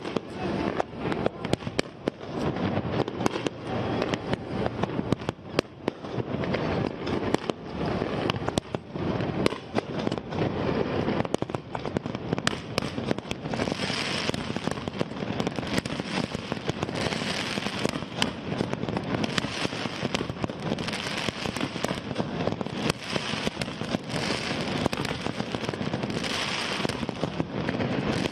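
Aerial fireworks display: a rapid, continuous barrage of shell bursts banging. From about halfway through, bursts of crackling hiss come roughly every second along with the bangs.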